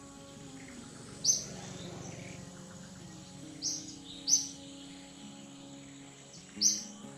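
Background music of held, sustained notes, with a short high chirp four times, about every second or two.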